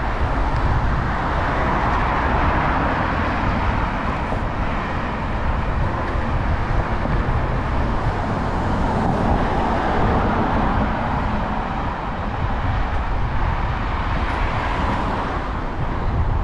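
City street traffic noise heard from a bicycle riding along a bike lane: a steady deep rumble with car sounds that swell and fade a few times.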